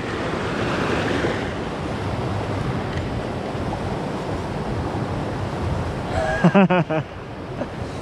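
Steady rush of flowing mountain-stream water, an even noise without pitch.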